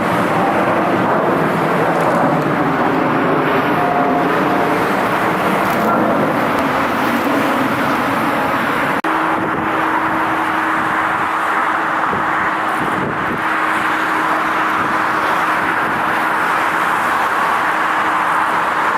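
Jet airliner engine noise, a loud, steady rush. About nine seconds in it cuts abruptly to a similar noise carrying a steady low hum.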